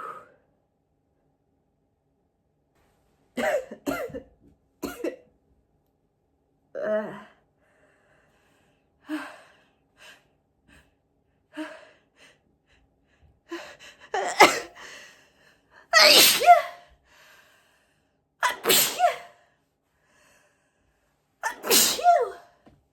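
Loud, high-pitched 'apchhee' sneezes from a person: four in the second half, a couple of seconds apart. They follow a run of quieter, shorter sounds in the first half.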